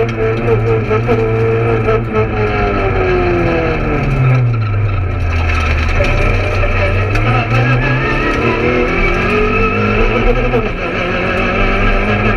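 Peugeot 208 R2 rally car's four-cylinder engine heard from inside the cabin: its pitch falls for about three seconds as the car slows, stays low, then climbs steadily again from about seven seconds in as the car accelerates.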